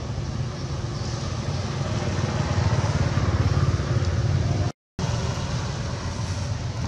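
A motor engine running with a steady low rumble, louder in the middle. It is broken by a brief cut to complete silence just before five seconds in.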